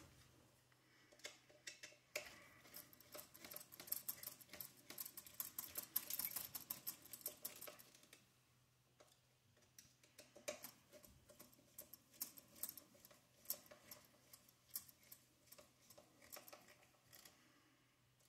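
Faint, irregular small clicks and ticks of a hex driver turning screws to bolt the center differential mount onto an RC buggy chassis, with a lull near the middle.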